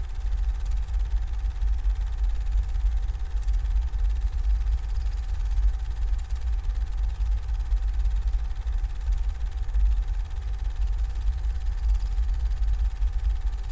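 Steady low rumbling drone with a faint, thin, steady hum held above it.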